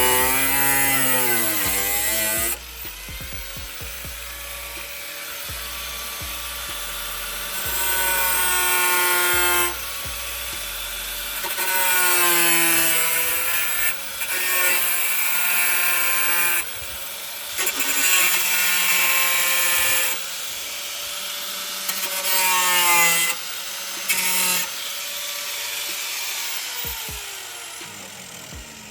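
Angle grinder grinding rust off a car's steel floor pan, its pitch sweeping up and down. The audio is chopped by abrupt cuts every few seconds, as in a sped-up time-lapse.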